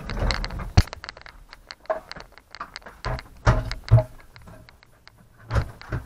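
Plastic clicks, knocks and rubbing from handling a Mastervac shop vacuum's motor head, its foam wet filter fitted, as it is set back onto the drum. A sharp click comes a little under a second in, and louder knocks come around four seconds in and again near the end.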